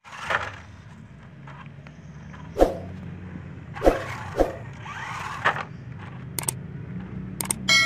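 A 4x4 RC rock crawler's electric drive humming low and steady as it drives, with several sharp knocks as it bumps into plastic toy dump trucks.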